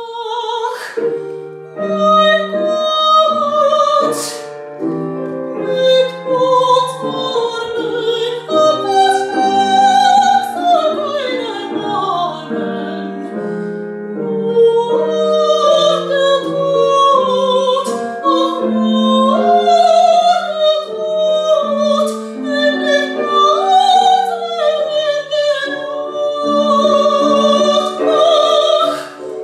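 A woman's voice singing opera with a wide vibrato, with piano accompaniment. The music starts suddenly after a brief silence, and about a third of the way in the voice sweeps downward in a long run.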